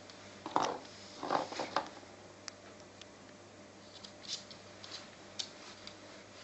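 Maltese dog playing with horse chestnuts on a laminate floor: a few short scuffles in the first two seconds, then scattered light clicks and taps of claws and chestnuts on the floor.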